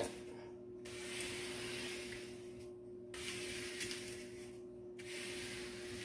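A hand rubbing over the plastic release film of a diamond-painting canvas: long hissing strokes of about one and a half to two seconds each, with short breaks between them.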